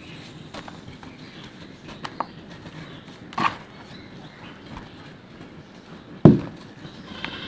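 Hands working dry red dirt: soft gritty rustling and crumbling of the powder. There is a sharper crunch about three and a half seconds in and a heavy thump a little after six seconds.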